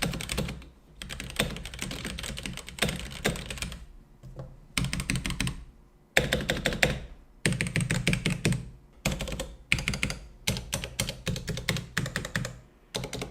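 Typing on a Womier K66 66-key mechanical keyboard with Gateron Black linear switches: fast runs of keystroke clacks in bursts, broken by short pauses every couple of seconds.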